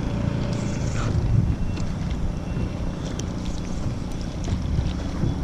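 Wind buffeting the microphone outdoors, a steady low rumble with a few faint clicks.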